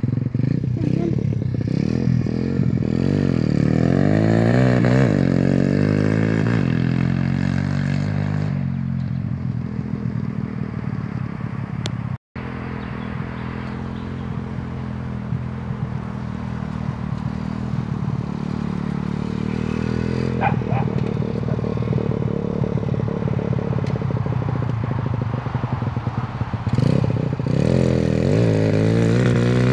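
125cc pit bike engine running and revving as the bike is ridden around, its pitch rising and falling with the throttle. The engine note is loudest at the start and near the end and weaker through the middle, with a momentary dropout about 12 seconds in.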